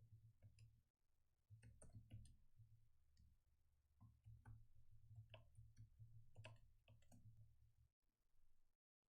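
Faint, irregular clicks of a computer keyboard being typed on, over a low hum.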